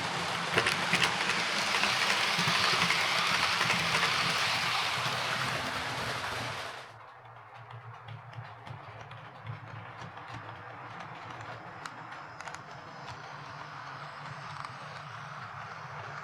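Hornby OO gauge Class 43 HST model train running on track with its replacement motor: a steady low hum with wheels ticking over the rails. The sound drops sharply about seven seconds in and carries on quieter.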